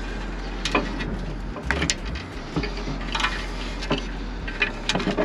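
Scattered light clicks and taps as fingers work a temperature-sensor plug and its clip free from the car's front bash bar.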